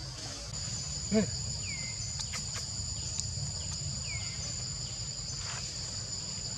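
Steady high drone of forest insects in two tones, the higher one joining about half a second in, over a low rumble. About a second in comes a short low call, the loudest sound, and a few faint falling chirps follow.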